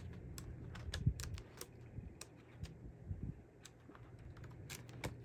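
Pages of a spiral-bound coloring book on stiff watercolor paper being handled and turned by hand: faint, irregular light clicks and paper rustles.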